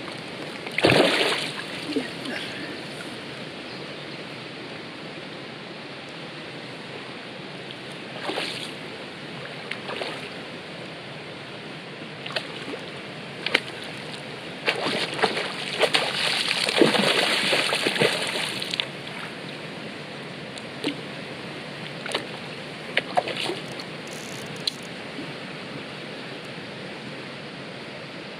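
Hooked trout splashing and thrashing at the water's surface as it is drawn to a landing net. There are short splashes about a second in and again around eight and ten seconds in, then a longer stretch of splashing from about fourteen to eighteen seconds. A steady rush of flowing river water runs underneath.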